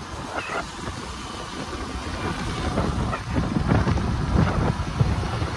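Motorcycle cruising at around 45 km/h: engine and road noise under a heavy wind rumble on the microphone, which gets gustier and louder in the second half.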